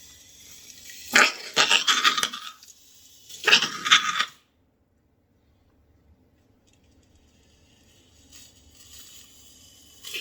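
Gas-charged siphon dispenser spurting cake batter in two sputtering hissing bursts, the first about a second in and the second about three seconds in.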